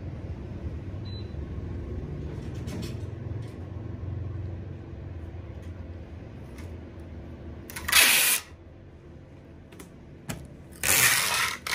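Packing tape pulled off the roll in two loud rips, the first about eight seconds in and the second about eleven seconds in, over a low background rumble.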